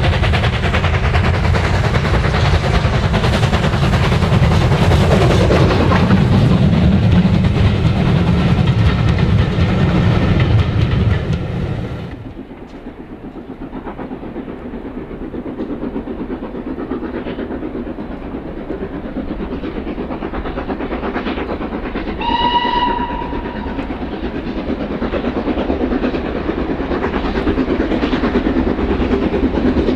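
A steam locomotive working hard past the lineside, with loud, rapid exhaust beats over heavy running noise, cut off sharply about 12 seconds in. Then a second steam locomotive approaches from a distance, its exhaust and train noise building, and it gives one whistle blast of about a second about three-quarters of the way through.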